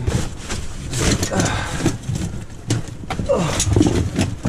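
Trash being rummaged through by hand in a dumpster: a plastic bag rustling and crinkling among irregular clatters and knocks of junk being shifted.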